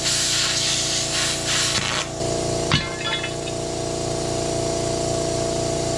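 Plasma cutter hissing as it cuts through steel plate, cutting off abruptly about two seconds in, followed by a single metal clank. A steady machine hum runs underneath throughout.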